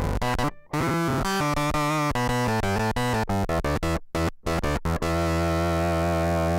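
Electric guitar played through an EarthQuaker Devices Bit Commander analog octave synth pedal. A quick run of notes is cut off sharply in places, then it settles into one long held note about five seconds in.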